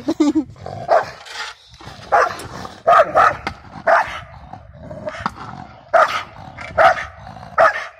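Dog barking repeatedly, short separate barks at uneven gaps, roughly one a second.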